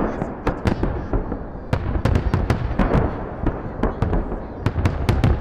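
A fireworks display bursting: a rapid, irregular series of sharp bangs and crackles, several a second, over a continuous low rumble of the shells.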